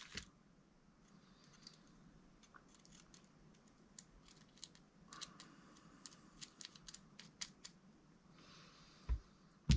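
Faint, irregular small clicks and taps of metal parts being handled as a pinion gear is taken out of an Arrma RC car's central differential, with a soft thump near the end.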